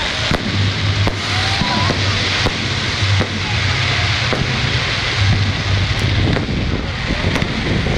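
Fireworks display: shells bursting with sharp bangs, about one a second, over a steady dense rumble.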